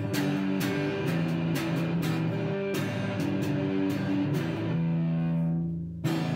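Electric guitar riff played on low notes in a steady rhythm. Near the end one note is held and left ringing for about a second before the next note is struck.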